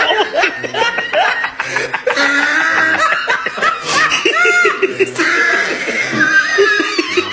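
Men laughing hard and continuously, with music playing underneath.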